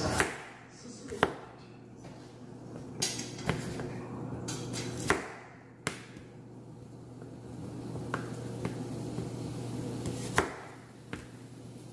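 Kitchen knife slicing peeled garlic cloves on a plastic cutting board: about ten sharp knocks of the blade meeting the board, spaced unevenly about a second apart, over a low steady hum.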